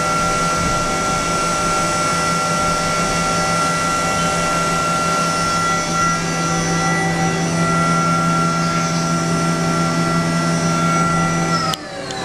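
Haas VF-6SS CNC machining center spindle running with a steady, high-pitched whine made of several held tones, its tool at an aluminium workpiece. Near the end the tones drop away quickly and the sound falls off as the spindle stops.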